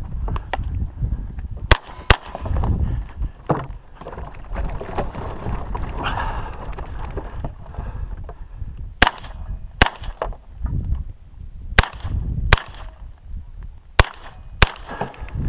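Rifle shots fired in pairs, each pair well under a second apart: one pair about two seconds in, then three more pairs in quick succession in the second half. Wind rumbles on the microphone between them.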